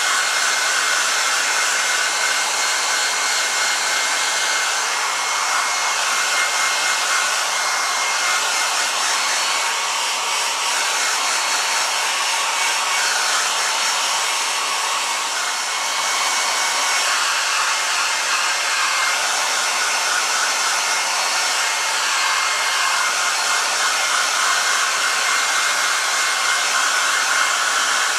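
Handheld hair dryer running steadily, blowing onto the damp fur of a squirrel mount: an even rushing hiss with a faint steady whine.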